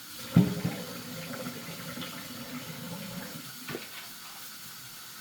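Kitchen tap running into the sink while bok choy is washed under it, a steady rush of water. A sharp knock about half a second in, and a lighter one near the end.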